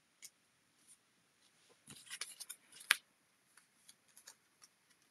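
Small paper die-cut labels being handled and laid on a card: faint paper rustles and light taps, a cluster of them about two to three seconds in, the sharpest click near the three-second mark.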